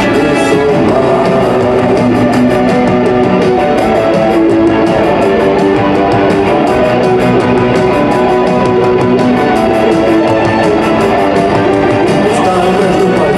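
Rock band playing live with electric guitars and drums, loud and steady.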